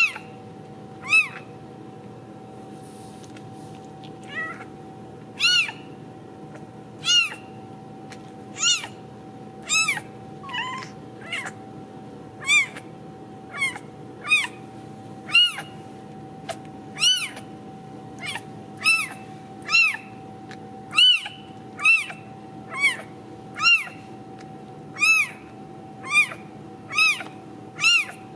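Newborn Ragdoll kitten mewing repeatedly in short, high-pitched cries, about one a second, each rising then falling in pitch. There is a pause of a few seconds shortly after the start.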